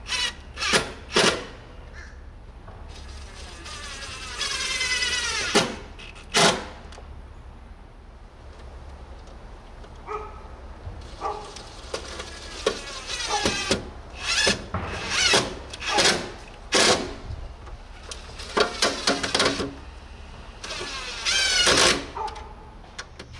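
Cordless drill driving screws into the house wall: a series of short whining motor runs, the pitch shifting as it speeds up and bogs under load, with pauses between screws.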